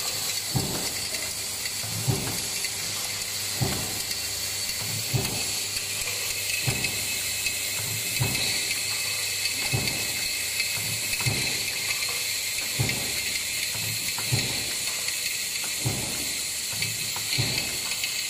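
Factory stamping press running a progressive die for steel pipe clamps: an even knock about every three-quarters of a second, one per press stroke, over a steady high hiss and whine from the running machinery.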